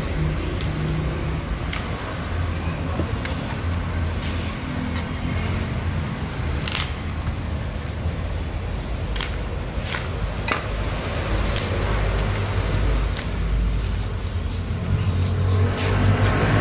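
Steady low rumble of road traffic, with scattered sharp clicks and taps throughout, and a louder swell near the end.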